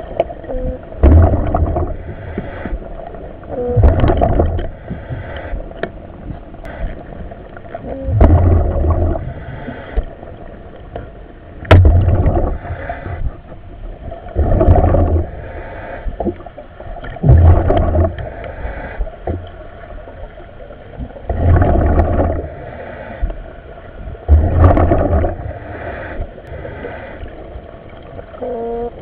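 A diver's breathing in a surface-supplied diving helmet, heard over the diver's comms: regular breaths about every three seconds, each a gush of air and bubbling exhaust.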